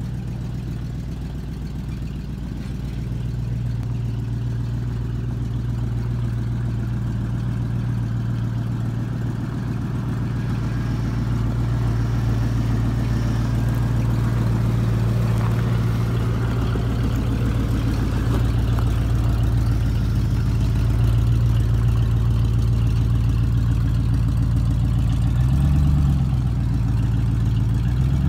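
Engine of a 1980s full-size Ford Bronco running at low revs as the truck crawls over rocks, growing louder as it comes closer.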